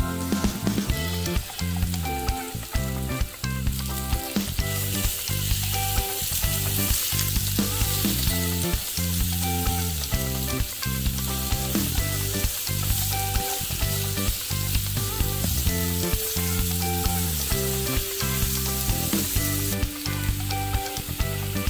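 Pear slices sizzling in butter in a frying pan while a spatula turns them; the sizzle grows louder about five seconds in and eases near the end. Background music with a steady beat plays underneath.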